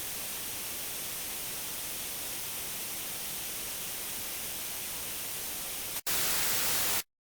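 Steady hiss of radio static on a dead channel. About six seconds in it drops out for an instant, comes back louder for about a second, then cuts off abruptly into silence as the transmission ends.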